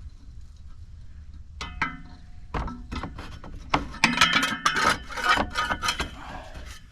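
Engine cooling fan being worked off its pulley and pulled out past the fan shroud: a few separate knocks, then from about four seconds in a couple of seconds of scraping and clattering, over low wind rumble on the microphone.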